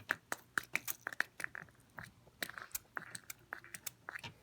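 Crunching and crackling of glued model-railroad scenery being pried and broken loose by hand: a rapid, irregular run of sharp clicks with a few short crackly scrapes.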